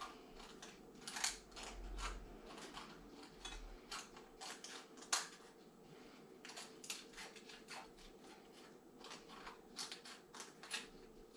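Scissors cutting round a thin metal can along a marked line: a faint series of irregular short, sharp snips.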